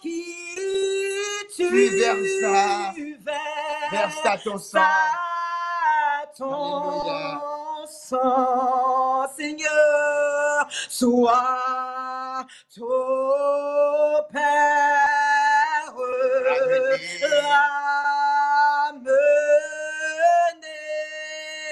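A man and a woman singing a slow French hymn together, drawing out long held notes that slide from one pitch to the next, with no instrument heard.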